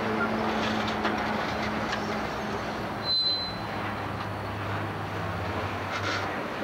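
Articulated electric tram passing close by: a steady rumble of wheels on the rails with a low hum, and a brief high-pitched squeal about three seconds in.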